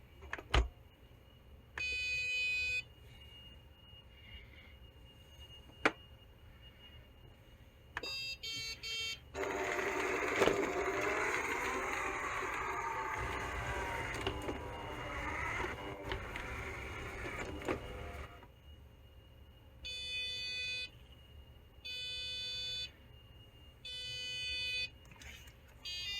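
Hoover Quest 700 robot vacuum beeping as it starts, running its motors and brushes for about nine seconds, then cutting out. After it stops it sounds a repeated alert beep about every two seconds. The cut-out is caused by a wheel spring whose end had slipped off its peg and jammed inside the wheel.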